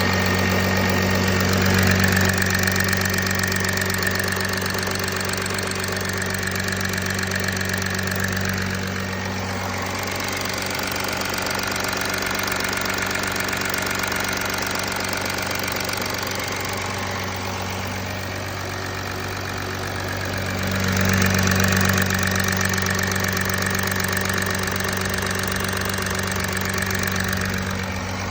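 Audi A4 B9 3.0 TDI V6 diesel idling steadily after a cold start, with a diesel clatter; the idle swells slightly twice, about two seconds in and again about two thirds of the way through.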